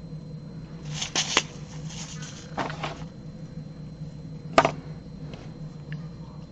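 A few sharp plastic clicks and knocks from a small screw organizer box being snapped shut and set aside, and small tools set down on the work table, over a steady low hum.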